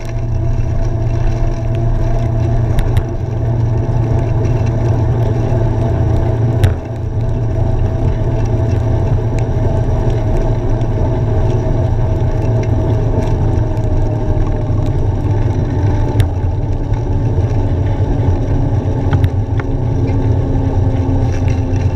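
Bicycle riding on a wet road in the rain: steady low wind and road rumble on the microphone with the hiss of the tyres through water. Under it runs a faint whine that slowly drops in pitch, and there are a few sharp knocks from bumps.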